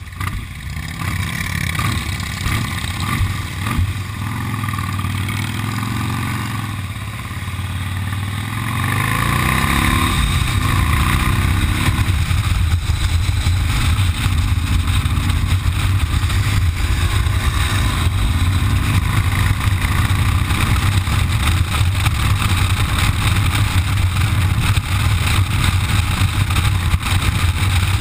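Motorcycle engine heard from on board, running at low speed, then accelerating with a rising engine note about eight to ten seconds in. It settles into steady cruising, louder, with rushing wind noise over the engine.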